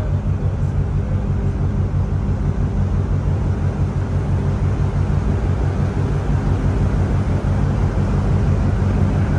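Steady low drone of a large container ship's machinery, a constant hum with an even rumble over it.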